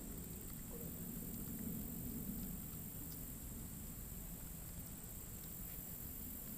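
Faint, steady outdoor ambience: an even low rumble and a high hiss, with a few light ticks.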